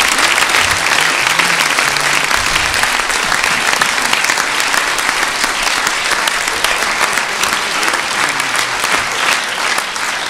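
A large audience applauding, with dense, steady clapping that starts to thin out at the very end.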